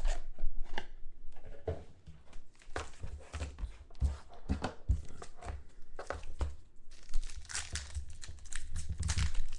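Plastic and foil packaging of football trading cards being torn open and crinkled by hand: irregular rustling and crackling, growing denser near the end.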